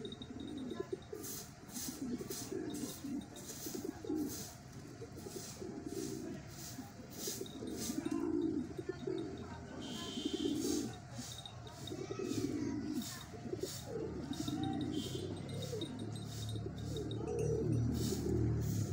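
Fancy pigeons cooing over and over, several birds' low warbling coos overlapping every second or two. Faint high chirps sound above them, and a low rumble grows near the end.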